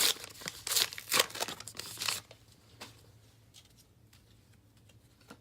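Wrapper of a 1991 Upper Deck baseball card pack being torn open and crinkled, a burst of ripping and crackling for about two seconds, then only faint handling of the cards.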